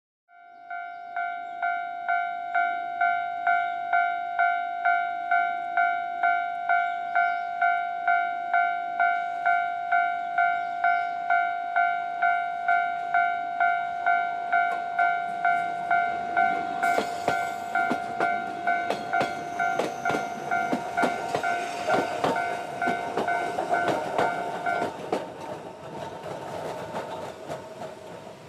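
Railway level-crossing electronic warning bell sounding, an even two-tone ding pulsing about twice a second, which stops about 25 seconds in. From about 17 seconds in, a narrow-gauge (762 mm) train comes in under it, its wheels clattering over the points.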